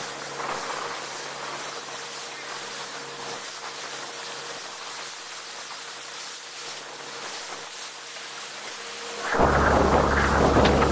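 Motorized outrigger boat's bow cutting through the sea: a steady hiss of rushing water and spray, with a faint engine drone underneath. About nine seconds in, the spray and wind buffeting the microphone turn suddenly much louder into a rough rumbling rush.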